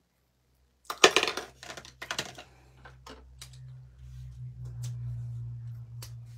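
Hard craft tools clattering together as one is picked up, in two bursts about a second and two seconds in. Then scattered small clicks as a pick tool works at the foam adhesive dots on a cardstock panel, over a low steady hum.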